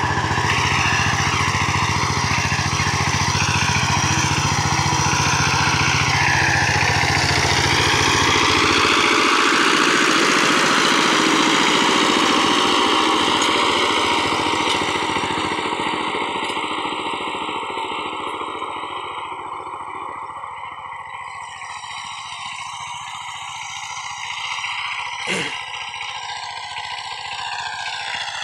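Single-cylinder diesel engine of a walking power tiller running steadily under load as it rotary-tills dry soil. It grows fainter through the second half as the machine moves away. There is one sharp knock near the end.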